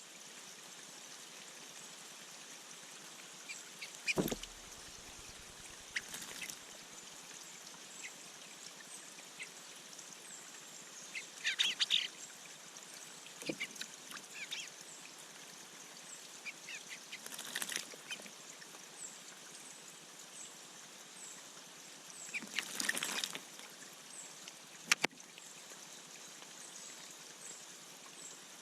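Birds splashing in a bird bath: several short bursts of splashing and a couple of sharp knocks, over a steady hiss with a faint, high chirp repeating in the background.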